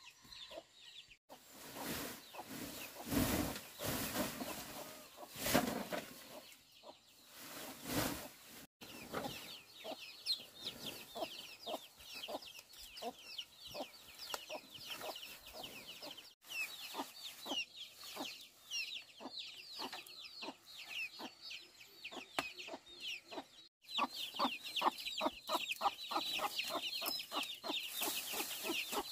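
A flock of chickens clucking, with many quick, high, falling chirps, heard across several short clips joined by hard cuts. In the first clip, loud swells of rushing noise cover the birds.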